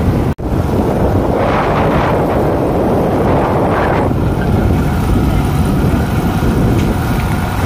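Wind buffeting the microphone of a moving motorcycle, a steady heavy rumble with road noise underneath; the sound drops out for an instant just after the start.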